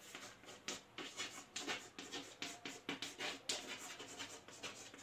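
Chalk writing on a blackboard: a faint, irregular run of short taps and scratches as the words are written.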